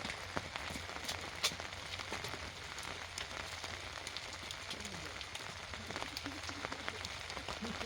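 Steady rain falling, an even hiss dotted with many small, sharp drop ticks.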